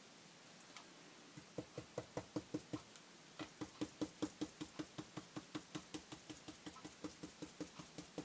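A brush dabbing paint through a plastic stencil onto a journal page: a quick run of light, even taps at about five a second, with a short pause about three seconds in.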